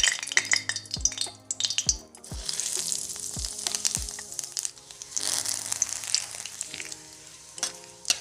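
Whole spices (cumin seeds, bay leaves, dried red chillies) sizzling and crackling as they hit hot mustard oil in a kadai. The sizzle is loudest right at the start, eases, then surges again about five seconds in before dying down.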